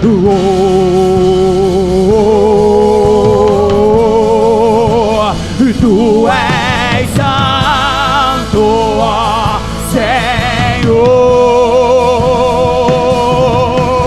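Live worship band with guitars, bass and drums, a singer holding long notes with wide vibrato over it. In the middle a higher voice takes over with a run of wavering high notes, then the lower held notes return.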